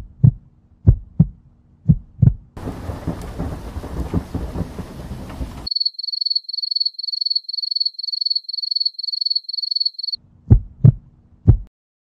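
Sound-effect sequence: a heartbeat thumping in lub-dub pairs, then about three seconds of rushing noise with low thuds, then crickets chirping in a steady high pulse about three times a second, and three more heartbeat thumps near the end.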